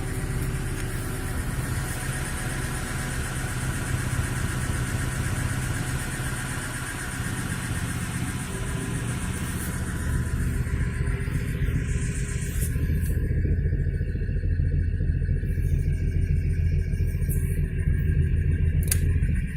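VAZ-2106 (Lada) inline-four petrol engine running steadily, its low hum growing stronger about halfway through. The owner says this engine knocks and burns oil.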